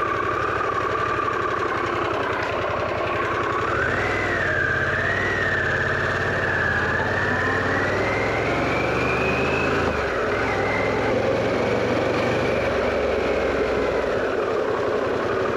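Harley-Davidson Pan America's V-twin engine running while under way. A higher whine wavers and climbs until about ten seconds in, and the low engine note shifts in steps as the speed changes.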